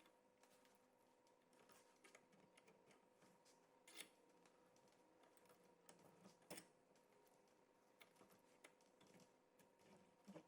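Near silence: faint scattered clicks, a few of them a little louder, over a faint steady hum.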